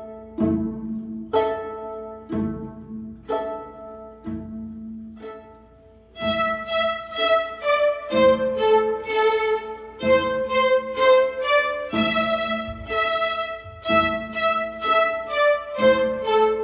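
String orchestra playing: plucked pizzicato notes about once a second, each dying away, then about six seconds in the bowed strings enter with a melody over a steady beat.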